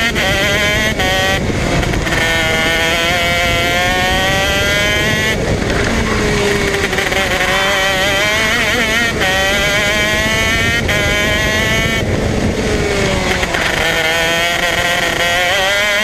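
Two-stroke 125 cc KZ shifter-kart engine (Modena Engines) running at high revs on track. Its pitch climbs repeatedly and falls back sharply several times, most deeply about five and twelve seconds in, as it shifts and slows for corners.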